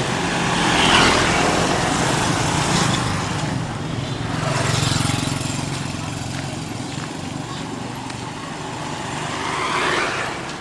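Small motorbike engine running steadily while riding along a road, with louder swells of passing noise about a second in, around five seconds in, and near the end.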